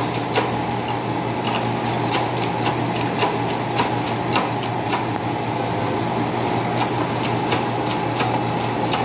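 Steady machine hum with irregular light clicks and ticks while a shop press pushes a new bearing down onto a water pump shaft.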